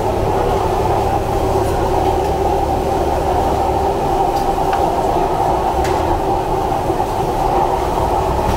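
Gas stove burners under a row of claypots burning with a steady rushing noise, with a few faint clinks of a metal spoon.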